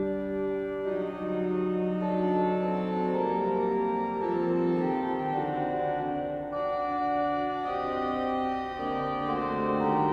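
An organ playing slow, held chords that change every second or two.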